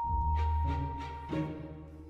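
Background music: a held high note over a sustained bass, with soft regular beats, fading toward the end.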